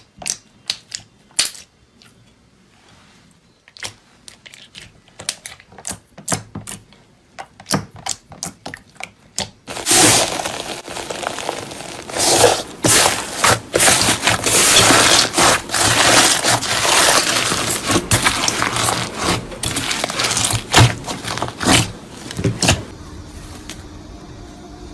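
Slime being squeezed and handled: a run of sharp clicks and pops, then, about ten seconds in, a loud, dense crunching and crackling that stops near the end.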